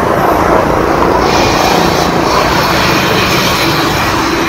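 Loud, steady street traffic: motor scooters and cars running close by.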